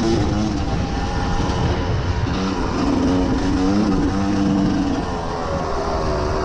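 Yamaha YZ250 single-cylinder two-stroke dirt bike engine running under throttle at speed, its pitch stepping up and down as the rider works the throttle.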